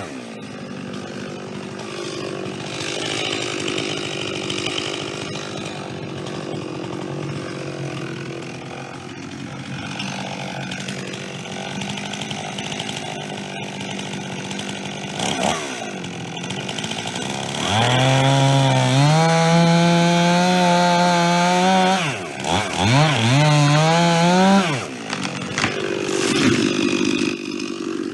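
Chainsaw running at a lower, steady level, then revved hard to full throttle for several seconds about two-thirds of the way in. Its pitch dips and climbs a few times before it goes high again, and it drops back near the end.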